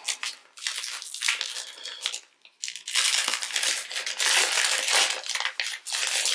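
Plastic wrapper of a trading-card fat pack crinkling and crackling as it is handled and opened by hand, with a short lull about two and a half seconds in.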